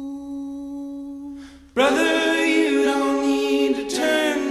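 Background vocal music: a held note fades away, then about two seconds in a loud chord of singing voices comes in suddenly and holds.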